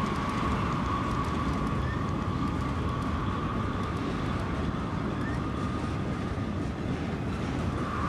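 HO-scale model passenger train running on the layout track: a steady rolling rumble with a thin, high tone held at one pitch throughout.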